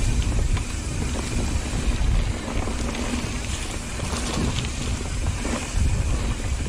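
Downhill mountain bike rolling along a dirt singletrack: wind rumbling on the camera microphone, tyre noise on the dirt, and scattered clicks and rattles from the bike.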